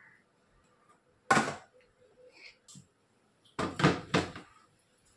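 Steel kitchenware clattering: a loud clank about a second in as coconut is tipped from a steel plate into a steel mixer-grinder jar, then three quick knocks near the middle as the lid is pressed onto the jar.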